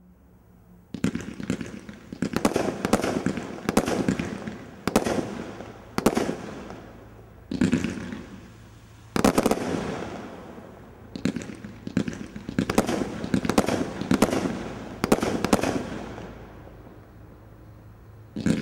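Sky Crafter 'Ultimate Warrior' combination Roman candle firework cake firing, starting about a second in. Volleys of sharp bangs and rapid pops come roughly every second or so, each fading between shots, with a quieter lull near the end before another loud volley.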